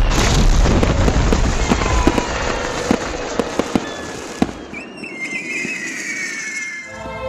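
Fireworks going off in a dense barrage: rapid crackling with many sharp bangs over a low rumble. After about four and a half seconds it thins out into a few falling whistles.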